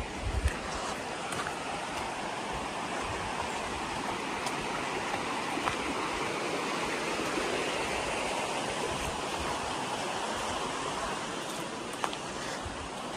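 Steady rush of a shallow stream running over rocks, with a few faint ticks scattered through it.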